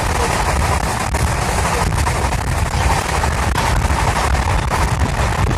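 Passenger train running at speed, heard from inside a coach at the window: a steady rush of wind and heavy rumble of the wheels on the track, with faint irregular clicks.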